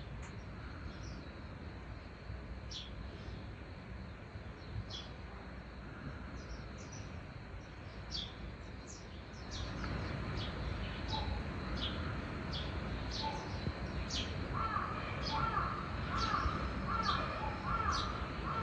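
Outdoor bird calls over a steady background hum: short, high, falling chirps come every second or so, and about three-quarters through a run of evenly spaced calls starts up at nearly two a second. The background grows louder about halfway through.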